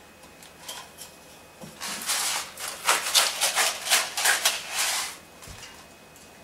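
Wooden pepper mill being twisted over a bowl, grinding pepper in a rapid run of rasping strokes, about three a second for some three seconds in the middle.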